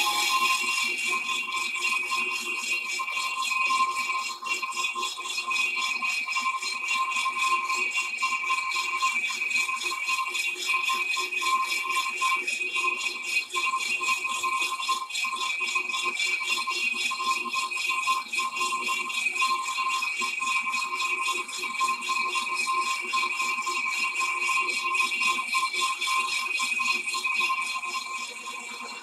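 Big Monarch lathe taking a turning cut with an indexable insert: a dense, steady rattle of broken metal chips coming off the cut, with a steady whine underneath. It gets quieter near the end.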